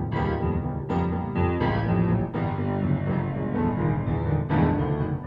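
Piano music: full chords struck every second or so, each ringing on and fading, over a steady low register.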